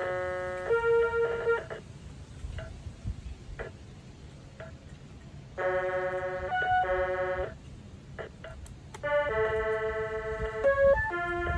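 Circuit-bent Protech toy keyboard putting out glitched, held electronic tones in three stretches, the pitch jumping from note to note, with scattered clicks in the gaps between.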